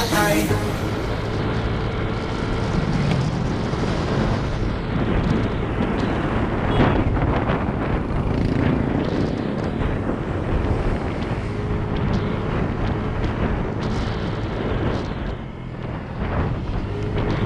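A vehicle on the move, with wind buffeting the microphone over a steady low engine drone and road noise. The level dips briefly near the end.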